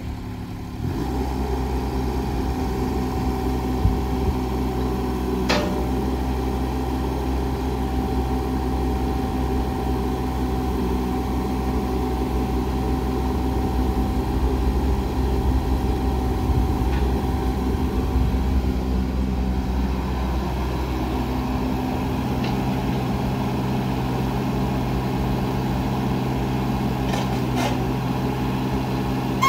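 JCB 16C-1 mini excavator's diesel engine running steadily while the hydraulics work the boom, arm and slew, with a steady whine over the engine for much of the time. A few sharp clanks from the machine stand out.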